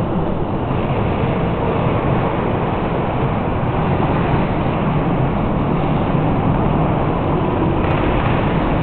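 Steady, even rumbling din of a large railway station hall, heaviest in the low range, with no distinct events standing out.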